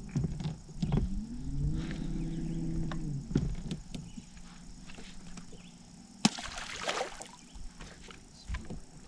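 Bow-mounted electric trolling motor whining as it spins up, holds for about two seconds and winds back down, starting about a second in. About six seconds in, a sharp click followed by a second of hiss.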